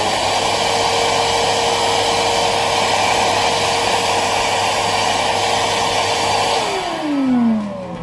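Lavor WT 20 P wet-and-dry vacuum's 800 W suction motor running at full speed with a steady whine and rushing air. About six and a half seconds in it winds down, the whine falling in pitch as the motor spins to a stop.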